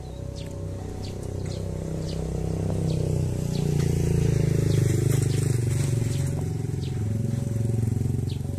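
Diesel locomotive engine running during shunting: a steady low drone that swells louder around the middle and eases off a little near the end.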